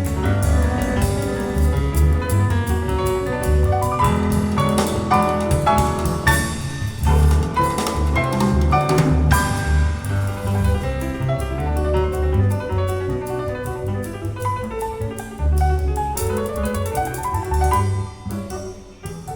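Recorded music played over a Viva Audio high-end hi-fi system and picked up in the listening room: piano over deep, pulsing bass and drums.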